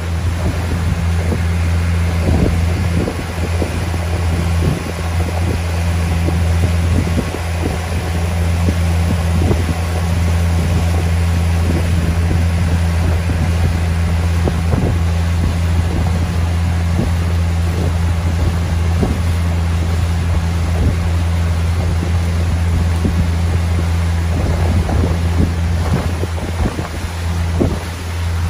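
Motorboat engine running steadily under way, a low even drone, with gusts of wind buffeting the microphone.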